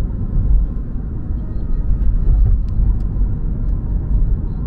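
Steady low rumble of a vehicle in motion, with a few faint clicks.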